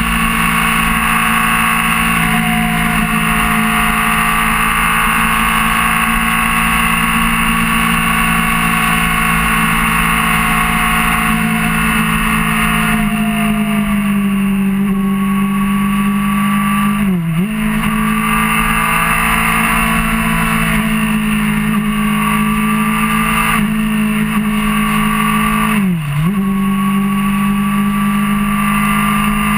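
Suzuki GSR600's inline-four engine running steadily at cruising revs, heard from the bike itself over a rush of wind and road noise. Twice, about halfway through and again near the end, the engine note dips sharply for a moment and comes back.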